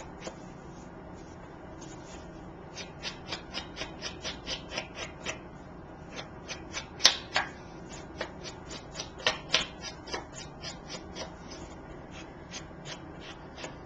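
Chalk ink pad dabbed and rubbed along the edges of paper card stock: a run of short scrapes and taps, about two or three a second, with one louder click about seven seconds in.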